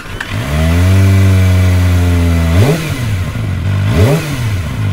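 Kawasaki Ninja ZX-25R SE's 249 cc inline-four engine idling steadily. About halfway through it is revved twice with quick throttle blips, each rising sharply in pitch and falling straight back to idle.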